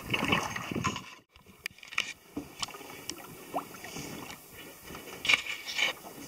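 Double-bladed paddle strokes from a lightweight pack canoe: water splashing and dripping off the blades, with a few sharp knocks and a short gap about a second in. There are two louder splashes near the end.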